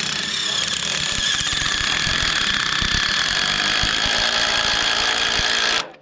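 DeWalt DCD991 brushless cordless drill driving a Speed Binders Torque Drive 9200 screw-type chain binder, its motor running with a steady whine as the binder pulls the chain tight, with irregular low knocks underneath from about a second in. The drill stops suddenly near the end.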